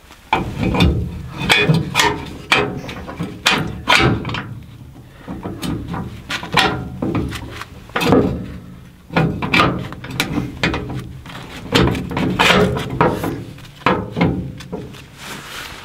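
Cast iron door and fittings of a Dominion & Grimm maple syrup evaporator's arch being fitted by hand: irregular metal clanks and knocks, coming in clusters.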